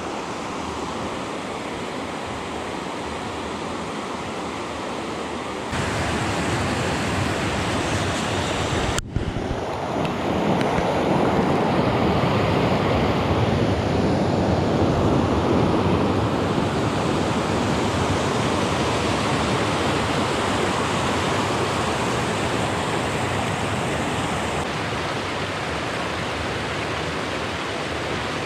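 Steady rushing of a river's shallow rapids and small cascades over rock ledges. It gets louder from about ten seconds in, with a brief break just before.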